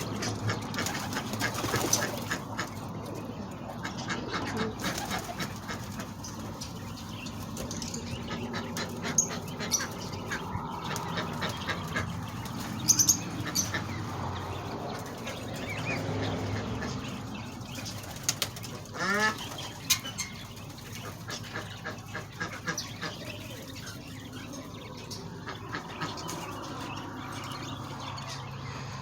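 Backyard poultry and birds calling, ducks quacking among them, with a scatter of short calls and clicks and one louder call about nineteen seconds in.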